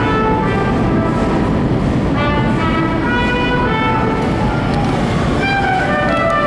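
Vintage R1-9 subway cars rolling into a station with a steady low rumble of wheels on track, while music with shifting held notes plays over it.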